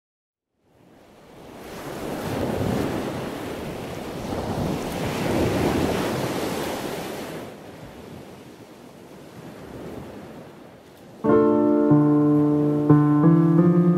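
Ocean surf breaking on a beach in strong wind, swelling twice and then easing off. About eleven seconds in, a piano comes in with held chords.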